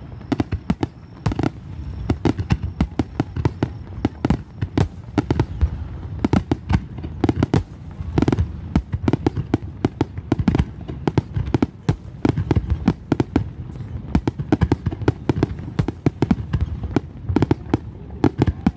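Fireworks display: aerial shells bursting in a dense, continuous barrage, several sharp bangs a second overlapping one another.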